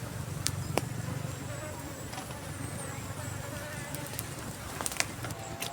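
A fly buzzing steadily close by, with a few sharp clicks scattered through it.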